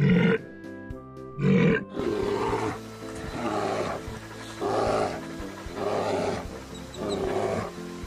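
Animal calls over steady background music: two loud, deep bellows in the first two seconds, then a run of rasping growls about once a second.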